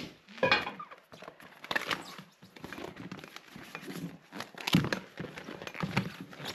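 Irregular knocks and scrapes of hand tools working on a steel skid steer wheel rim and tire.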